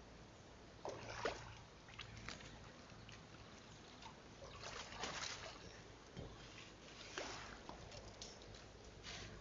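Water splashing in a few irregular bursts, with quieter sloshing between them.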